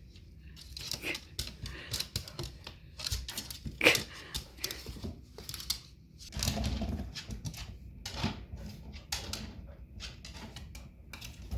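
Dogs' claws clicking and scratching in quick irregular bursts, with scrapes and knocks, as the corgis paw and scramble after a toy on a shelf.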